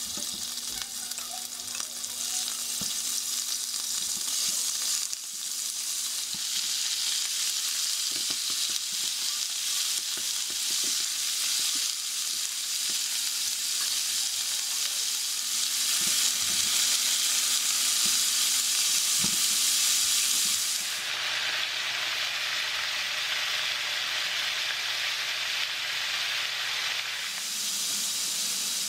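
Beef sizzling in hot oil in a nonstick frying pan: a steady frying hiss that grows louder as more meat goes in, with light taps and scrapes of a spatula stirring it.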